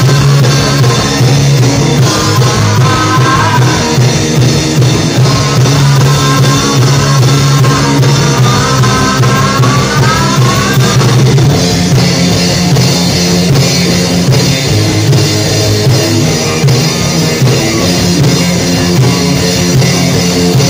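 Live rock band playing loudly through the PA: drum kit, bass and electric guitars. A high lead line bends up and down in pitch over the first ten seconds or so, then the cymbals and top end come up brighter for the rest.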